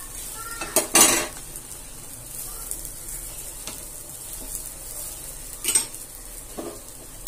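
Dosa sizzling steadily on a hot nonstick tawa while a steel spatula presses it flat to crisp it, with a few sharp metal clacks of the spatula and a spoon against the pan, loudest about a second in and again just before the end.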